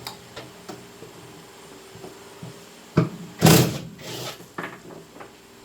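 A few knocks and a clatter of hard objects being handled, the loudest a short burst about three and a half seconds in, over a faint steady hum.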